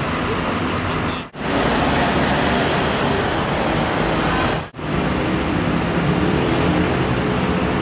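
Steady street traffic and engine noise with a low hum. It cuts out sharply for an instant twice, about a second and a half in and again just under five seconds in.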